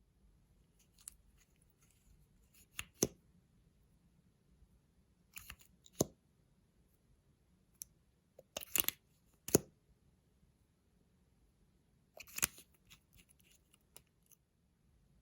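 Handling noises: a series of sharp clicks and short crackly bursts, one every few seconds, with quiet between them.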